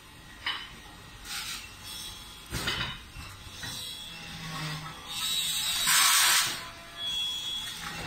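Screwdriver turning screws in a key cutting machine's sheet-metal frame: scattered clicks and metal scrapes, with a louder hiss lasting about a second and a half past the middle.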